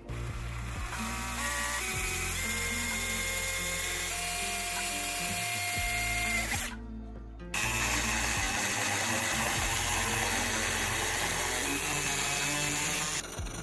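A small power tool running in two stretches of about six seconds each, stopping briefly in the middle, over background music.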